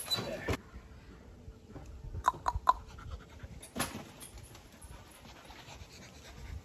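Sounds of a dog, with three short quick yelps about two seconds in.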